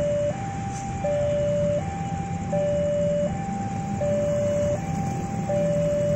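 Indonesian railroad level-crossing warning alarm sounding its repeating two-tone signal, a louder low note and a higher note alternating about every three-quarters of a second: the crossing is closed for an approaching train. Under it runs the low engine rumble of motorcycles waiting at the crossing.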